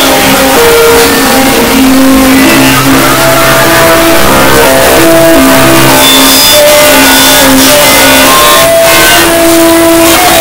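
Loud, heavily distorted music: a melody of held synth-like notes stepping from pitch to pitch, buried in a dense, steady roar of noise.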